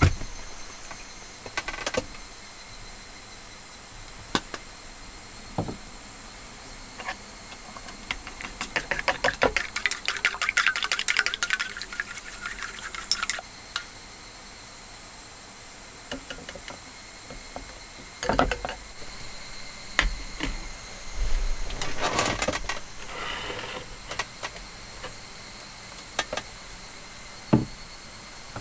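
Wooden chopsticks beating eggs in a stainless steel cup: a fast run of light clicks against the metal for about five seconds, with shorter bursts of beating later, among scattered knocks of handling.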